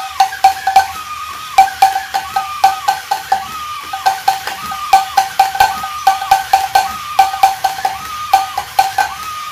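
Alps Teddy the Drummer toy bear beating its toy drum in quick, uneven clusters of sharp strikes, with a wavering whine from its mechanism under the beats as it walks.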